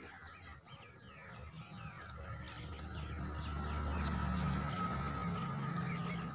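Many small birds chirping in quick short calls, over a low hum that swells through the middle and eases off near the end.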